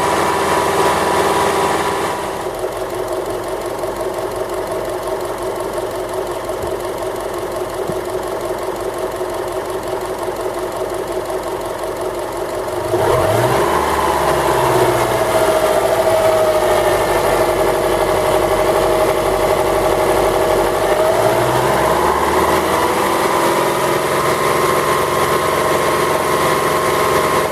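Warmed-up Subaru EJ204 2.0-litre flat-four engine running at idle, recorded up close for the knock it makes when warm. Its sound drops about two seconds in and grows louder again around thirteen seconds, with the pitch rising and falling twice.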